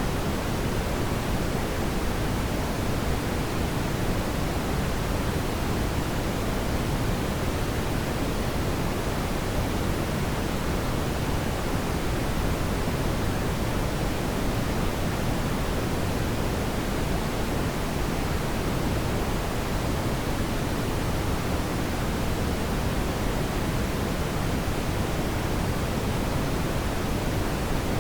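Steady brown noise: a smooth, even hiss weighted toward the low end, with no changes or events.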